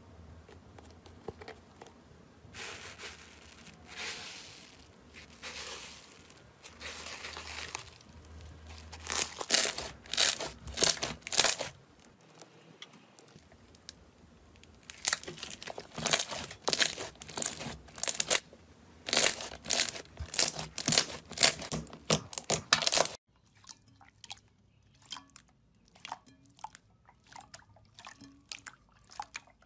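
Slime being squeezed, stretched and poked by hand: soft squishing at first, then loud runs of rapid crackling and popping. Near the end it changes abruptly to quieter, scattered sticky clicks.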